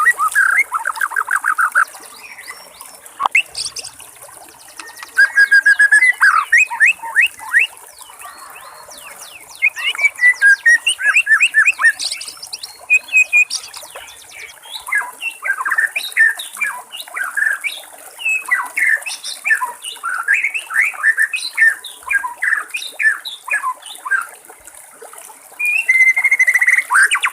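White-rumped shama (murai batu) singing in bouts of varied, rapid whistled and chattering phrases, with short pauses between bouts. A steady trickle of water hisses underneath.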